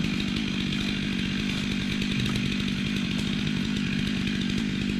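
Two-stroke chainsaw running steadily.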